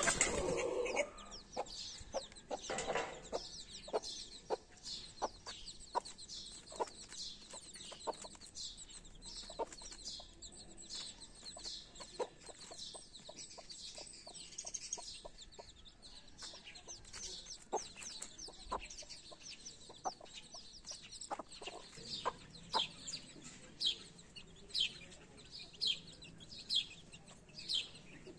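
Young chicks peeping: a continual run of short, high chirps, with occasional lower clucks from the mother hen. A brief louder noise at the very start.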